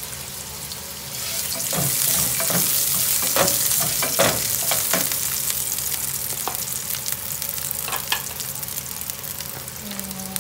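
Sliced ginger and garlic sizzling in hot oil in a frying pan, the sizzle growing louder about a second in. A wooden spatula knocks and scrapes against the pan a few times in the first half.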